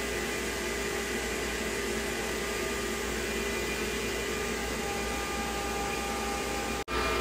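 CNC router spindle running with the dust collector drawing air through the hose: a steady whine over a rushing noise. The sound drops out for an instant near the end.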